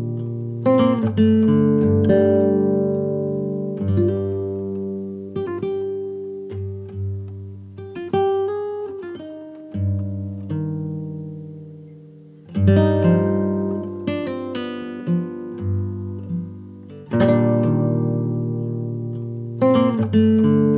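Background music: acoustic guitar, plucked and strummed chords, each ringing out and fading before the next.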